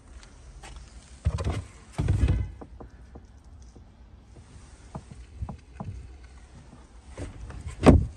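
Carpeted boot floor panel of a hatchback handled by its pull handle: knocking and scraping as it is lifted about a second in, a few small clicks, then a single loud knock near the end as it drops back into place.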